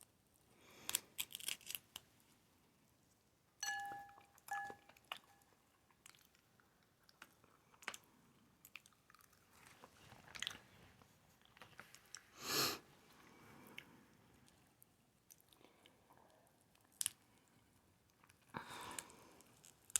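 Quiet, close-up mukbang eating sounds from a seafood boil: chewing and crunching with scattered clicks and cracks as the food is handled and eaten. There is a brief two-note squeak about four seconds in and a louder, half-second noisy burst about twelve seconds in.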